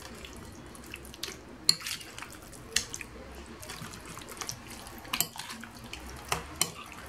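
Fish pieces being turned in a wet chermoula marinade in a glass bowl: soft wet squelching, with a few sharp clicks of the utensil against the glass.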